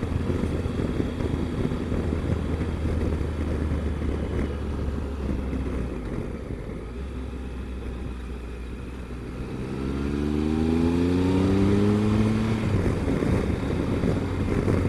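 Triumph Explorer's three-cylinder engine running under the rider with wind noise, easing off into a bend and then accelerating out of it. Its note rises in pitch and gets louder for about three seconds, then drops back.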